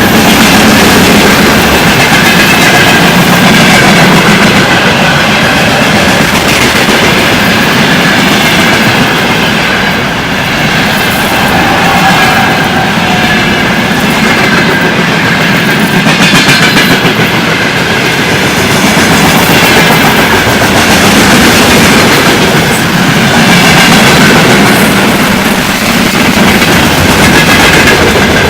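Freight train wagons rolling past close by: a loud, steady rumble of steel wheels on the rails with clickety-clack over the rail joints.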